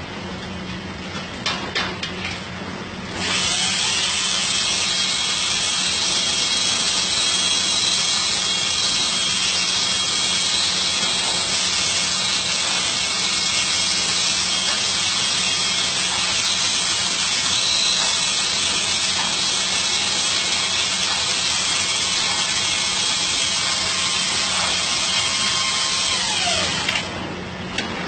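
Electric power drill running steadily for over twenty seconds, spinning up about three seconds in and winding down near the end. A few light knocks come just before it starts.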